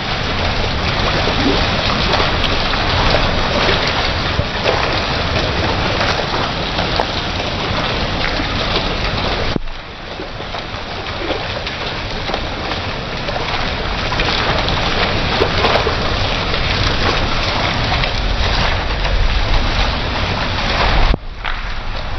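Water gushing from a drain spout in a wall and splashing onto a tiled floor, a steady rush that breaks off abruptly twice.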